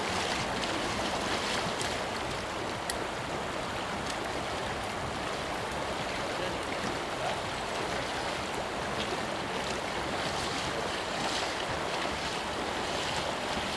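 Shallow river current rushing steadily over a gravel riffle, with splashing from waders moving through the water.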